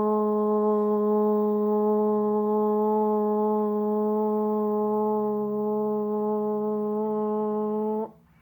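Alert attention tone of a mock emergency broadcast: one steady, buzzy low-pitched tone, held unchanged and cutting off abruptly near the end.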